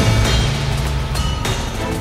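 Background music with a deep bass, held tones and a few struck beats.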